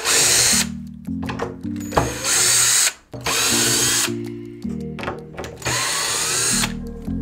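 Ryobi cordless drill/driver backing screws out of a plastic rail, running in four short bursts of under a second each, one with a rising whine as it speeds up.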